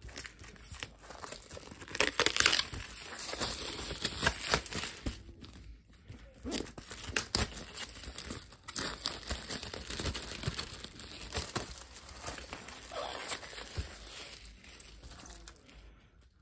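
Clear plastic shrink-wrap being pulled and torn off a wall calendar, crinkling and crackling in uneven bursts, loudest about two seconds in.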